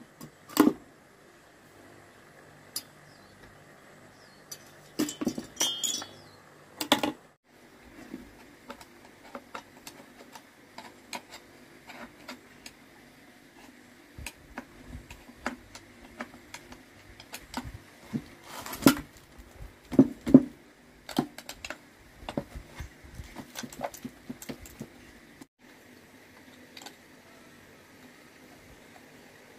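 Irregular clicks, taps and scraping of a screwdriver and loose metal parts on a chainsaw's two-stroke engine as it is taken apart, with caked dirt being scraped out of the crankcase. A few louder knocks stand out among the lighter clinks.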